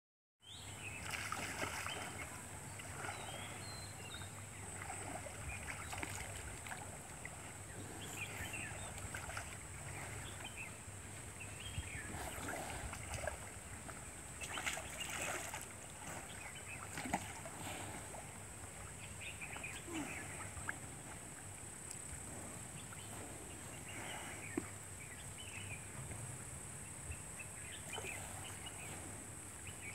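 Water buffalo moving through a muddy pond, the water lapping and sloshing around their bodies with scattered small splashes, over a steady high-pitched drone.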